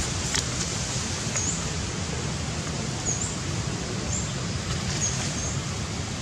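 Steady outdoor background hiss with four brief, faint, high-pitched chirps spread through it.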